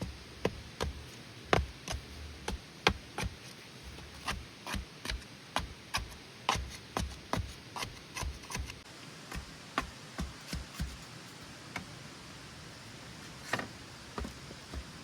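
Sharp knocks and taps from hand work on bamboo: an irregular run of about two or three a second, of uneven strength, that thins out to a few scattered knocks after about eleven seconds.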